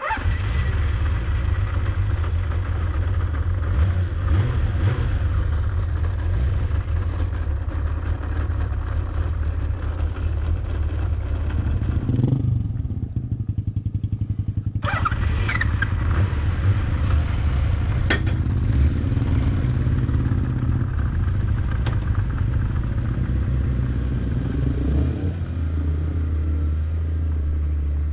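Honda CBX 1000's 1047 cc inline-six engine running. It cuts in suddenly, drops to a quieter, duller note for a couple of seconds about halfway through, and settles into a steadier, lower note near the end.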